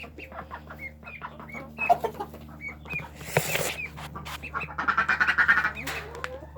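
Young chickens and ducks calling: a string of short, repeated peeping calls, with a louder cluster of calls about five seconds in and a brief rustle about three and a half seconds in.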